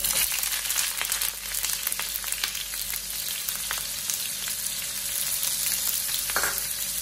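Sliced onions hitting hot coconut oil in a frying pan, sizzling and crackling at once. The spitting is loudest in the first second or so, then settles into a steady sizzle.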